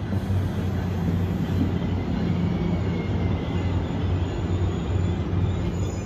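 NJ Transit train of multilevel coaches hauled by an ALP-45DP dual-power locomotive, with a steady low engine drone and a faint high whine over it.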